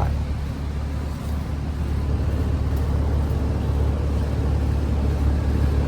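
2017 Heil 5-ton central air conditioner condensing unit running steadily: a constant low hum from its Copeland scroll compressor under the even rush of the condenser fan.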